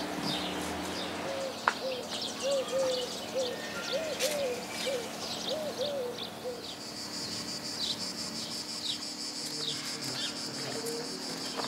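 Birds calling in a garden: a run of short low hooting notes, each rising and falling, repeated about twice a second for some five seconds, over scattered high chirps. From about seven seconds in a steady high buzz, like insects, joins.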